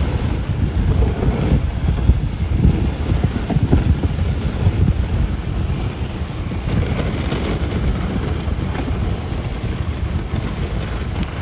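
Steady wind buffeting the microphone of a moving dog sled, with the hiss of the sled running over snow.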